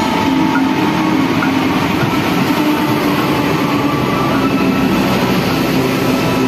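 Passenger train moving along a station platform: the CC 206 diesel-electric locomotive running past, then its coaches rolling by on the rails, a loud steady rumble.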